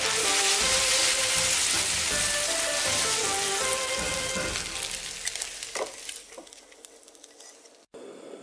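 Beaten egg sizzling in hot oil in a nonstick wok as it is scrambled with a spatula. The sizzle is loud for about five seconds, then dies away, with a few light clicks of the spatula, before cutting off sharply near the end.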